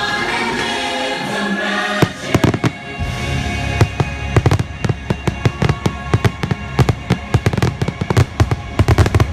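Orchestral soundtrack music with a choir, broken about two seconds in by a sharp firework bang. From about four seconds a rapid barrage of firework bursts, several a second, goes off over the music.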